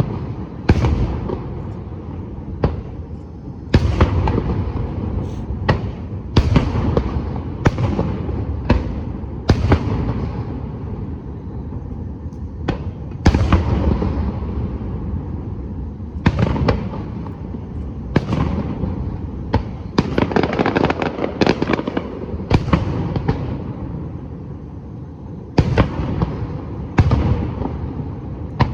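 Aerial fireworks shells bursting at a fireworks display: a run of sharp booms at uneven spacing, some in quick clusters, each followed by a rolling echo.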